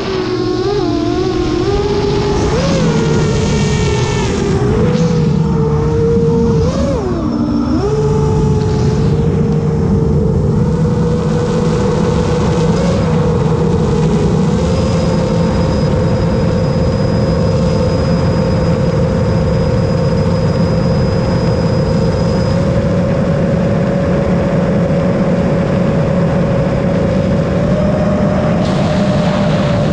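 Long-range FPV quadcopter's motors and propellers whining. The pitch swoops up and down with the throttle for the first several seconds, then holds a steady tone that edges up slightly near the end.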